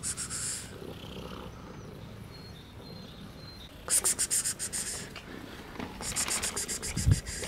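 Domestic cat purring in three short spells with pauses between, a fast, even pulsing.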